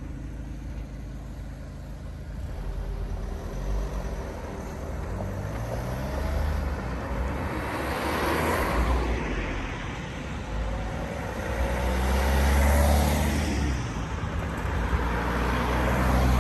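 Cars and a van driving over a railway level crossing one after another, each passing close by with engine and tyre noise that swells and fades; the loudest passes come about eight, twelve and sixteen seconds in.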